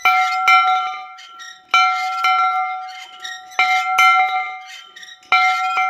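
A metal bell struck twice in quick succession, four times over, each strike ringing on in a clear, steady tone with bright overtones.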